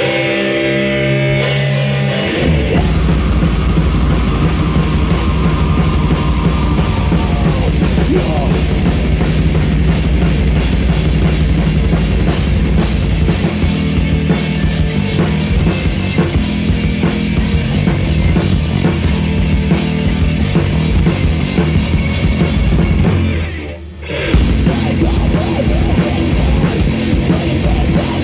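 Rock band playing loud heavy rock. A guitar line plays alone at first, then the drum kit and full band come in about two seconds in. The music drops out for a moment near the end and crashes straight back in.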